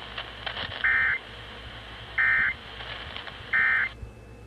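Three short bursts of Emergency Alert System digital data tone, the SAME end-of-message code, each about a third of a second long and evenly spaced. They sound over a hissy radio broadcast background, which cuts out near the end.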